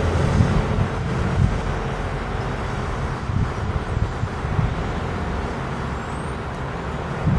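Steady low outdoor rumble of background noise with no distinct events, of the kind PANN places with road traffic.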